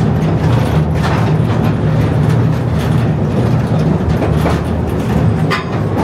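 Small mine train running through a rock tunnel: a steady low motor hum from the locomotive, with the wagons rattling and knocking on the narrow-gauge rails.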